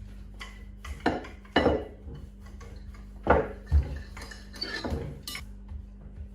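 Kitchen dishes and cutlery handled, with about half a dozen knocks and clinks, the loudest pair about one and a half and three and a half seconds in, over a steady low hum.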